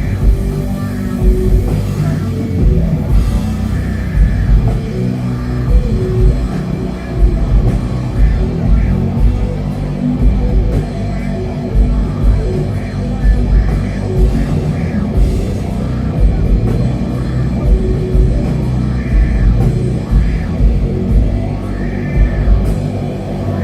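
Doom metal band playing live: heavy guitars and bass packed into the low end over drums hitting a slow, steady beat, about one heavy hit a second.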